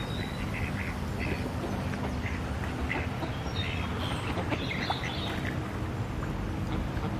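A flock of gulls and ducks calling on a river: short, scattered calls overlapping over a steady low background noise.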